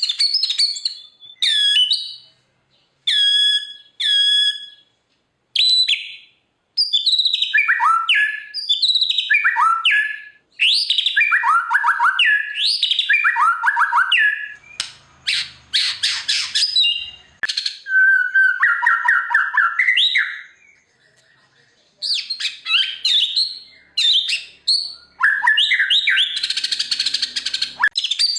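White-rumped shama (murai batu) singing a long, varied song of loud whistled notes, falling sweeps and fast trills, with brief pauses between phrases. The song includes imitations of other birds' calls.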